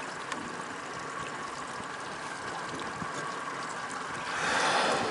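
Water lapping around a boat with its engine running quietly underneath. About four seconds in, a louder whoosh rises and fades within a second.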